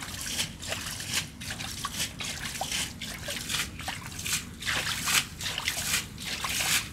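Hands scooping and flinging muddy water in a shallow puddle: repeated irregular splashes, with water trickling and dripping back.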